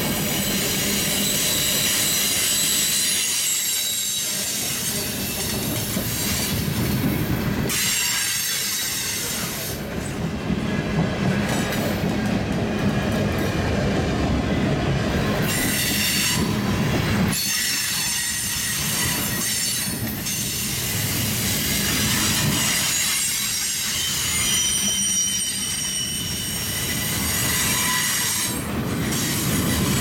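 Freight cars rolling past on jointed track: a steady rumble of steel wheels on rail, with high-pitched wheel squeal sounding on and off.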